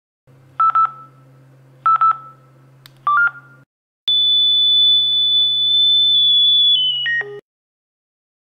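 SICO 3017 insulation fault locator beeping: two short double beeps, then a rising two-note beep. About four seconds in comes a steady high tone, its acoustic signal on picking up the 36 kHz LZB cable signal, which steps down in pitch near the end and cuts off, all over a low electronic hum.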